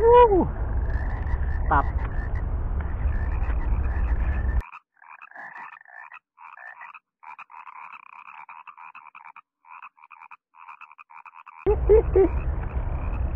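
Frogs calling in rapid, evenly repeated croaks, many a second. A heavy rumble of wind and handling noise on the microphone covers them at first, drops away about four and a half seconds in, and comes back near the end.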